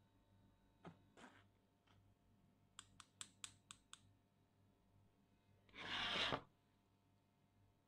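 Flour being sifted through a stainless steel mesh sieve with a spatula: a few soft scrapes, then a quick run of about six light taps, and about six seconds in a louder rustling scrape lasting under a second.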